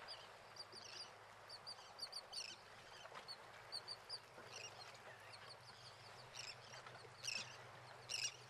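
Faint, irregular high chirps of small birds over a low steady hum.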